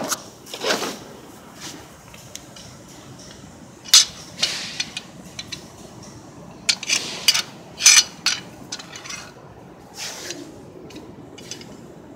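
Hand tools and metal parts clinking and clattering in irregular sharp knocks, with a few louder clanks about four and eight seconds in.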